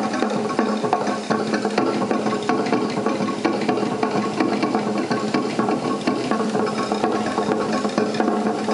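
Steady chatter of a large outdoor crowd of spectators, a dense unbroken murmur of many voices.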